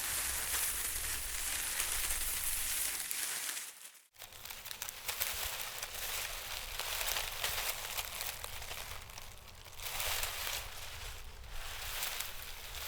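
Wind blowing through trees, leaves rustling in a steady hiss that swells and eases. The sound drops out briefly about four seconds in, then resumes.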